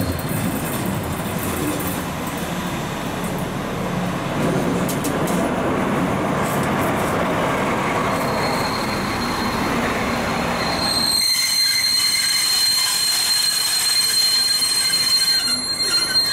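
DB Class 218 diesel-hydraulic locomotive running into the station close by, its diesel engine and wheels making a heavy rumble. About eleven seconds in the rumble drops away suddenly and a steady high-pitched wheel squeal takes over.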